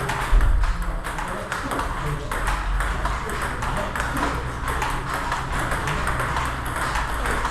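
Table tennis balls clicking off rackets and the table in a quick, steady run of hits during flick practice, over a steady low hum. There is one louder low thud just after the start.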